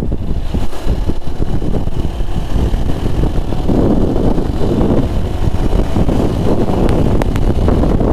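Wind rushing over the microphone of a motorcycle on the move, with the Lifan KPR 165's engine running steadily underneath at cruising speed.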